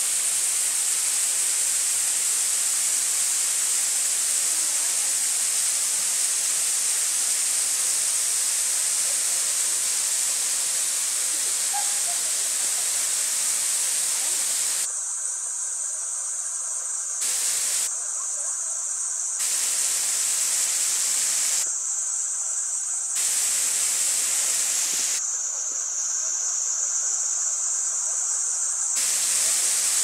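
Steady rushing hiss of a waterfall, strongest in the high register. The sound thins and dips a little in level several times in the second half.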